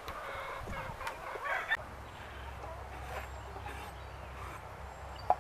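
Wooden beehive boxes and frames being handled and knocked together, with a knock a little under two seconds in and a sharp clack near the end.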